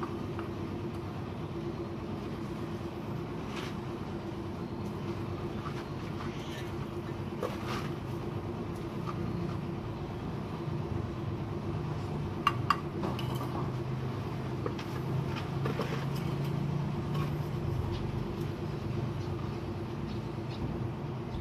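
Bricks being laid on top of a wall: scattered light knocks and taps of brick and trowel, with two sharp clicks about twelve seconds in, over a steady low mechanical hum.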